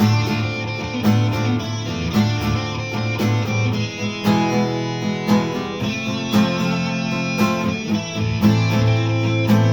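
Guitar playing chords in a steady rhythm, with no singing.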